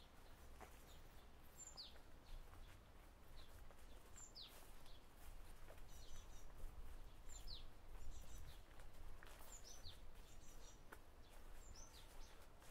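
A bird calling repeatedly, each call a short high note followed by a quick falling whistle, five times about two and a half seconds apart, with softer chattering notes in between. Under it is a faint low rumble.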